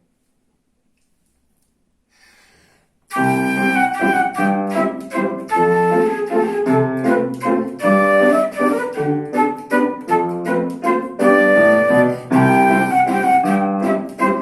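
Near silence for about three seconds, then a solo instrumental waltz begins, with sustained chords and a melody over bass notes.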